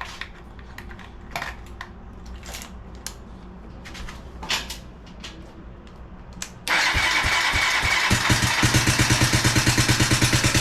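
A few light clicks, then about two-thirds of the way in a Suzuki DR200's air-cooled single-cylinder four-stroke is cranked on its electric starter and fires almost at once, settling into an even, rapid running beat: the first start after a top-end rebuild. The valve train is somewhat loud, which the owner takes for valves that need readjusting.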